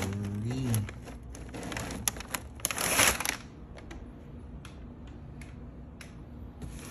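Clear plastic packaging bags crinkling and rustling as parts are handled inside a cardboard box, with scattered light clicks and knocks; the rustling is loudest about three seconds in, then dies down to quieter handling.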